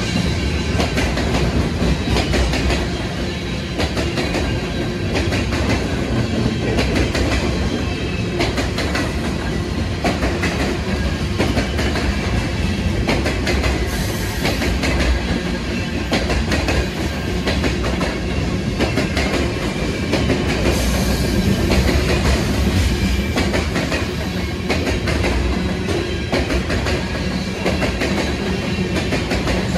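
Freight train of covered hopper cars rolling past close by: a steady rumble of wheels on rail with a dense run of clicks and clacks as the wheels pass over rail joints.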